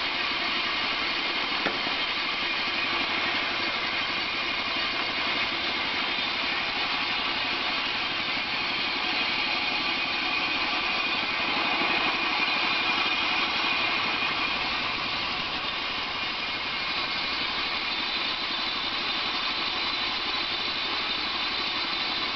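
ThinBand portable band sawmill running steadily, its engine driving the band blade through a log under power feed. A single click comes near the start, and the sound swells slightly about halfway through.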